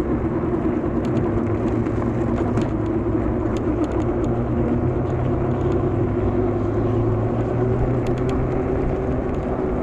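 Wind rushing over an action-camera microphone while riding an e-bike, over a steady low hum.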